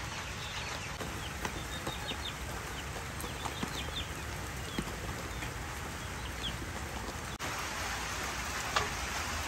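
Young chicks peeping in short high chirps over a steady hiss of rain. About seven seconds in, the chirping stops and the rain hiss becomes denser and brighter.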